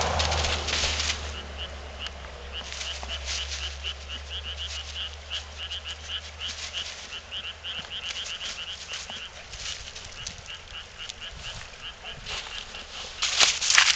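A frog calling in a long series of short, evenly repeated croaks, about three or four a second, over a low steady hum. Rustling and knocking noise comes at the start and again near the end.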